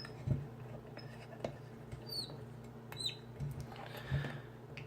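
Lock-picking tools working in the keyway of an American Lock Series 2000 puck lock: faint scattered clicks and two short high squeaks of metal on metal, over a steady low electrical hum.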